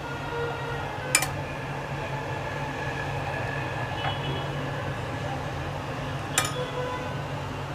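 Two sharp clinks of a metal spoon against a non-stick pan, about five seconds apart, over a steady low background hum.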